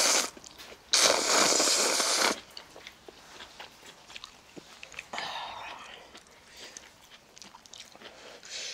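Instant ramen noodles slurped loudly from a bowl for about a second and a half, starting a second in, then chewing with small clicks and a softer second slurp about five seconds in.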